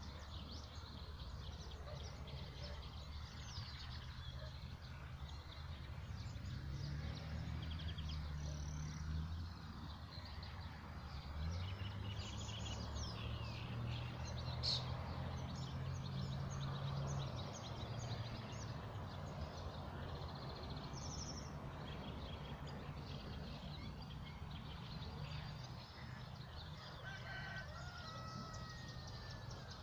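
Wild birds singing and chirping, many short calls overlapping, over a low steady hum.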